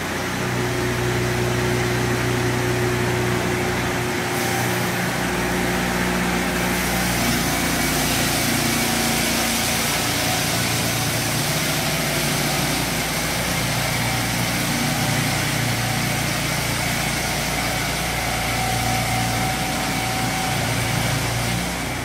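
Mahoe portable circular sawmill running, its engine holding a steady note as the circular blade cuts along a log.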